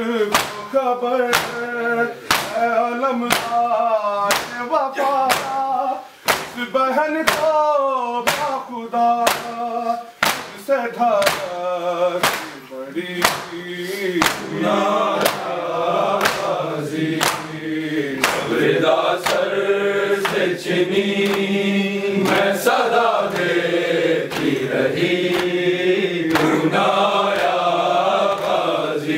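A group of men chanting a noha, a Muharram lament, in unison, with sharp rhythmic slaps of hands striking chests (matam) keeping a steady beat of about one and a half strikes a second.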